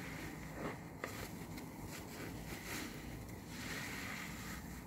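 A new foam car sponge squeezed and kneaded in thick soap lather: wet squelching with crackling, popping suds, swelling with each squeeze.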